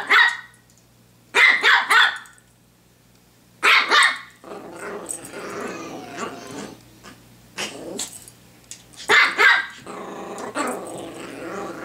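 Pomeranian play-barking in four short volleys of sharp barks, with a low growl rumbling between them as it tussles with a toy.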